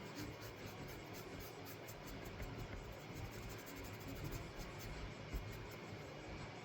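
Faint, quick, repeated scratching and rubbing strokes of a painting tool working paint across the painting surface, blending the edge between two areas of colour.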